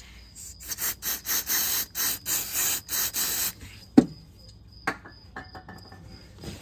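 Aerosol contact cleaner sprayed in a quick series of short hissing bursts for about three seconds, cleaning oil off a glow plug wire connector so that it makes a good connection. A single sharp knock follows about a second later.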